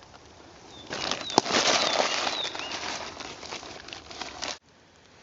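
A loud rustling, flapping noise for about three and a half seconds, with a few short high bird chirps over it, which stops abruptly near the end.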